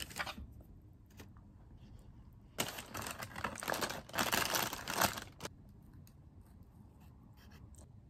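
Paper wrapping and a paper bakery bag crinkling and rustling as hands unfold them, a burst of about three seconds in the middle, with a few faint clicks and taps around it.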